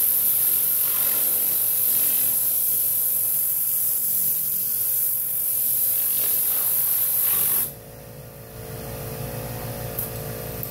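Tornador Classic air-powered cleaning gun hissing steadily as compressed air drives it to spray cleaner, cutting off suddenly about three-quarters of the way through. After that a quieter steady machine hum is left.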